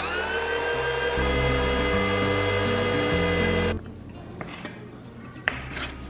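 Food processor motor kneading whole wheat bread dough: a steady whine that rises a little in pitch at first as it comes up to speed, then holds, and cuts off suddenly near four seconds in. Background music carries on after it.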